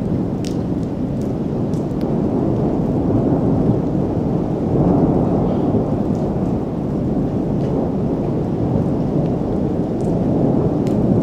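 Thunderstorm: continuous rumbling thunder that swells about five seconds in, with rain falling and scattered sharp ticks of drops.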